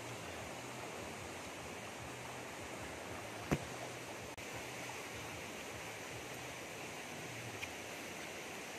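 Steady rushing of a flowing river over rocks, with a single sharp click about three and a half seconds in.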